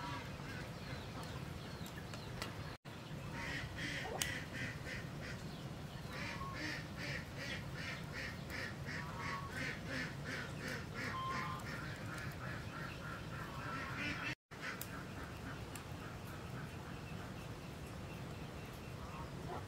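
Ducks quacking in a rapid run of calls, about four a second, over a steady low background hum; the sound cuts out briefly twice.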